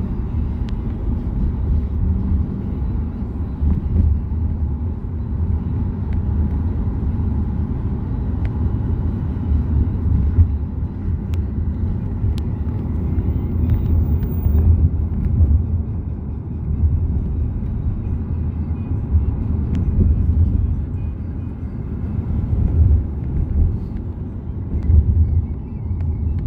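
Steady low rumble of a moving road vehicle heard from inside it: engine and tyre noise that rises and falls in loudness.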